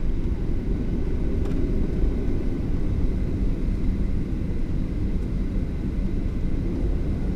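Cabin noise of a Boeing 737-800 from a window seat over the wing: a steady low rumble from its CFM56 engines and the rolling airframe as the aircraft taxis onto the runway.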